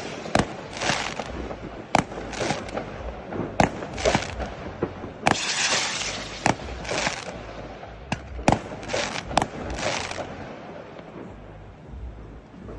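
Fireworks rockets going off in quick succession: sharp bangs and crackling bursts with hissing, thinning out about ten seconds in.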